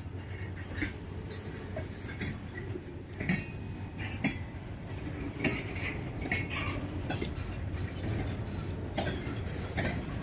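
Freight cars of a grain train rolling slowly on the track, with a steady low rumble under scattered metallic clanks, clicks and brief squeals from wheels and couplers.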